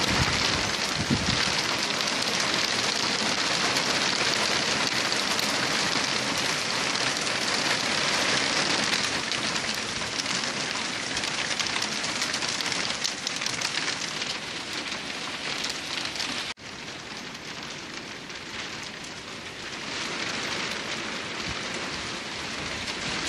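Hail falling steadily: a dense hiss of small hailstones striking the ground. About two-thirds of the way through it drops suddenly to a quieter level, then slowly builds again.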